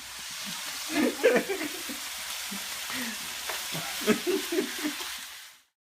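Chopped pork frying in a pan, a steady sizzle with stirring scrapes and crackles, fading out just before the end.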